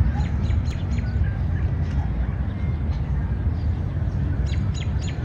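Outdoor park ambience: a steady low rumble with songbirds chirping in short, high calls scattered through, several close together near the start and again near the end.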